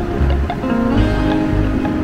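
Background music: sustained chords that change about a second in, over a pulsing bass.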